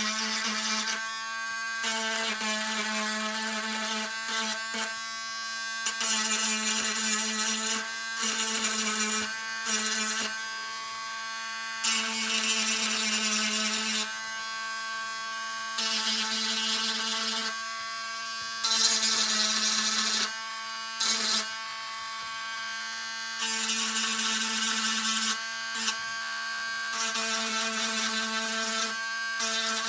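Dremel rotary tool with a diamond burr running at a steady whine while it grinds ejector pin marks off a plastic model kit part. The grinding comes in repeated passes of a second or two, each adding a loud gritty hiss over the motor's whine.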